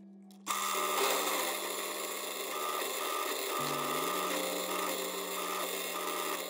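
Drill press boring into a wooden workpiece with a long twist bit: a steady motor hum, then about half a second in the loud, rough sound of the bit cutting into the wood begins and continues. Around the middle, the motor's pitch drops briefly under load and then picks back up.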